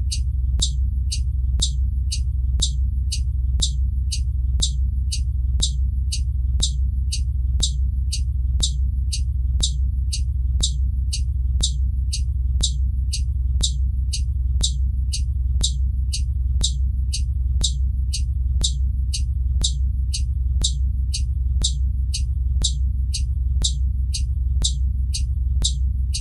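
Blue Bird Vision school bus turn signal flasher ticking steadily, about two clicks a second, over the bus's engine rumbling steadily.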